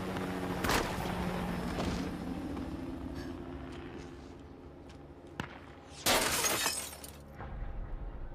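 Action-film gunfight sound: a few sharp single shots or bullet impacts, then about six seconds in a loud burst of shattering glass lasting under a second.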